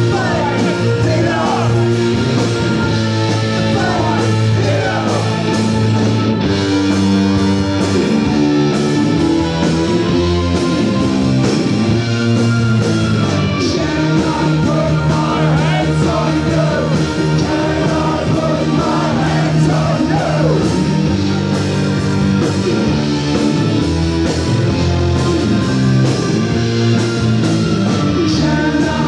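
Rock band playing live: electric guitar, bass guitar and drums, with a singer on lead vocals.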